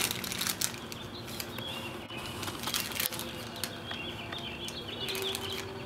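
A plastic candy bag crinkling and rustling in the hands, with scattered small crackles, while small birds chirp faintly in the background.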